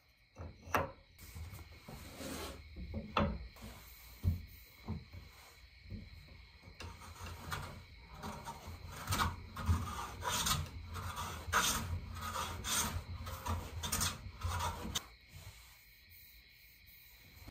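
A few sharp hammer taps on wood, then a run of rasping strokes, about one and a half a second, as a hand tool shapes a wooden tool handle.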